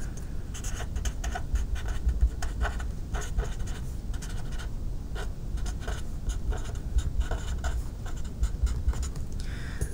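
Felt-tip marker writing on paper: a run of short, separate scratchy strokes as words are written out, over a low background rumble.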